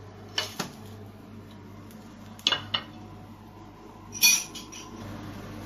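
A few short clinks and clatters of metal kitchen utensils against a cooking pan, the loudest a little past four seconds in, over a faint steady low hum.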